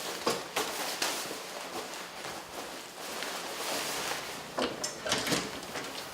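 Rustling and shuffling noise broken by a handful of light knocks and clicks, like objects being handled or moved about; no beeping tone is heard.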